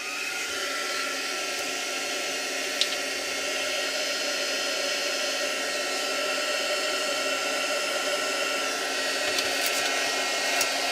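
Handheld hot-air dryer blowing steadily to dry wet acrylic paint on a paper page. Its motor whine rises briefly as it switches on at the start, then holds level.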